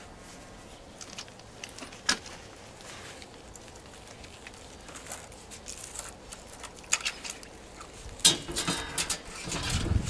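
Hands working plastic conduit fittings and wiring at the controller: scattered clicks and rustling, with a sharp click about two seconds in. The handling gets busier in the second half, with the loudest knocks and rustling near the end.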